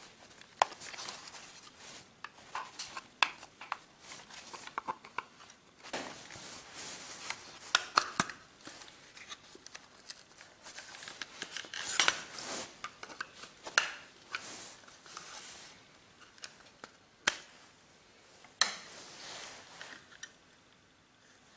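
Irregular clicks, taps and scrapes of hard plastic parts of an analog multimeter being handled and taken apart with a small screwdriver: the case, circuit board and clear meter cover knocking and rubbing. A few sharper clicks stand out, and the handling dies away near the end.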